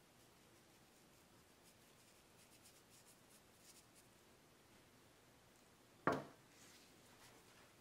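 Near silence with faint light ticking of chili flakes being sprinkled onto grated mozzarella. About six seconds in there is a single dull thump.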